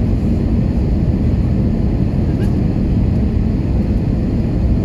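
Steady cabin noise of an Airbus A320 on approach, heard from inside the cabin: engine and airflow noise, a deep, even rumble that holds level throughout.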